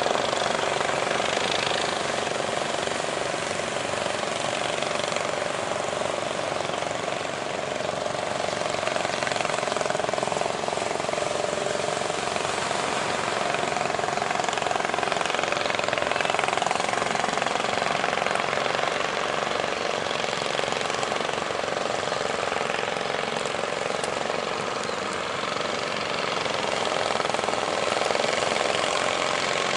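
A fishing boat's engine running steadily with a rapid chatter, over a continuous rushing noise of surf and wind.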